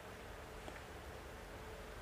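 Quiet room tone, a steady low hum and hiss, with one faint small click about two-thirds of a second in as a microphone stand's boom-arm clamp is handled.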